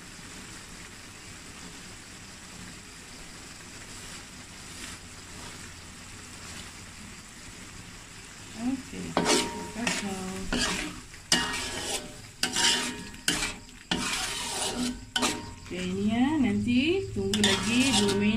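Thick sardine and potato curry filling sizzling quietly in a wok. About halfway through, a metal spatula starts stirring it, with repeated loud scraping strokes against the pan.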